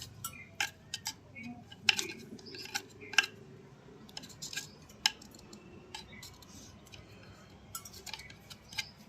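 Irregular light metallic clicks and clinks of hand work on a Royal Enfield Bullet engine, such as a nut or cap being worked, with the sharpest clicks about two and three seconds in.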